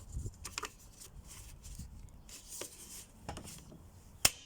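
Plastic wheel trim being handled and pressed onto a small lawnmower wheel: scattered light clicks and rubbing, then one sharp snap near the end as the trim clicks into place.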